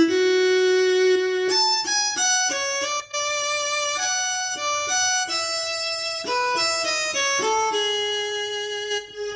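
Yamaha PSR-S970 arranger keyboard playing its sampled violin voice: a single-line melody, a long held first note followed by shorter notes stepping up and down in pitch.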